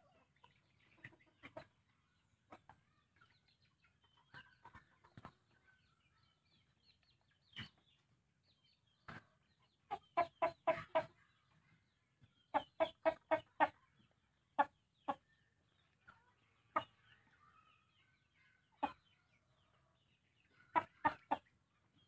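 Shamo chickens clucking. The clucks come singly and in quick runs of about five a second, louder from about ten seconds in and again near the end.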